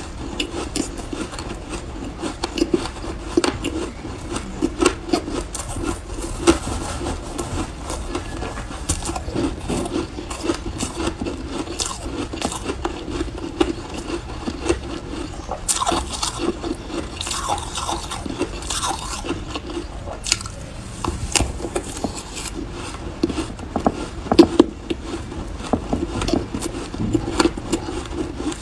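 Shaved ice being chewed with many small crisp crunches, mixed with a metal spoon scraping and scooping through a tub of shaved ice.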